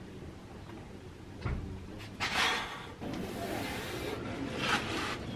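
A man breathing out hard during reps of lying dumbbell skull crushers: two breathy bursts, one about two seconds in and one near the end, with a soft low thump about one and a half seconds in.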